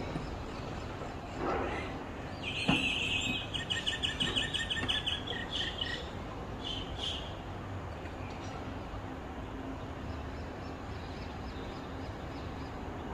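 A parrot chirping: a rapid run of high, repeated chirps starting about two and a half seconds in and lasting a couple of seconds, then a few short chirps soon after, over steady background noise.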